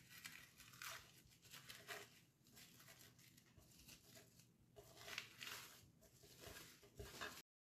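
Faint crinkling and rustling of plastic cling film as hands wrap it tightly around a raw cod fillet, in short irregular bursts; it cuts off abruptly near the end.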